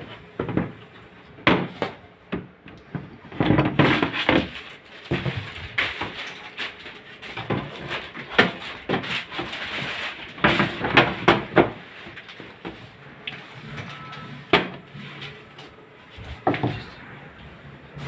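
Irregular knocks, clicks and scrapes of objects being handled, with some rustling between them; the loudest knocks fall around the middle and near the end.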